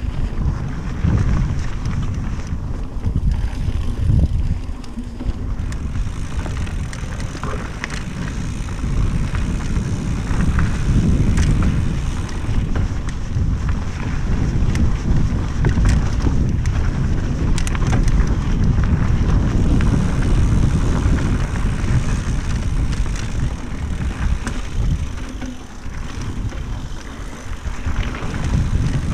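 Mountain bike descending a dirt singletrack at speed: wind buffeting the microphone and tyres rumbling over the packed dirt, with scattered short clicks and rattles.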